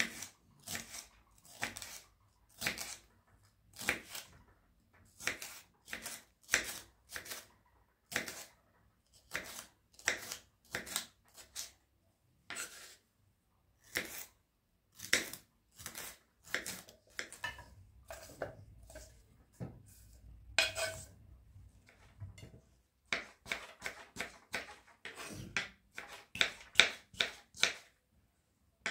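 An irregular series of short knocks and clicks from objects being handled, roughly one to three a second, coming faster near the end.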